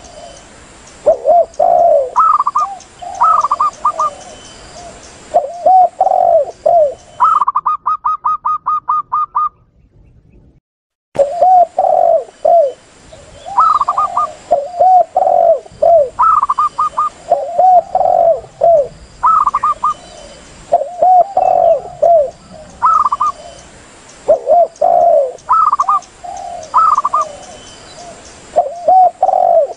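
Recorded lure calls of spotted doves and zebra doves, cooing repeatedly: low rolling coos alternate with higher, quicker phrases. About seven seconds in there is a fast run of about ten short notes, then the calling breaks off for about a second and a half before starting again abruptly.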